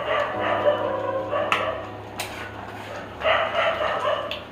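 A dog barking in two bouts, the second about three seconds after the first, over a steady low hum.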